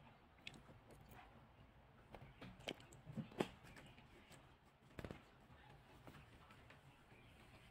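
A few faint, brief knocks and scuffs from a kitten wrestling with and biting a rubber sandal on a wooden floor, the loudest a little over three seconds in; otherwise near silence.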